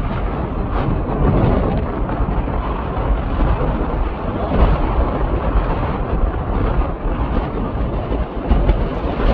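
Off-road vehicle driving on sand dunes: a loud, steady, deep rumble of engine and tyres with no clear pitch.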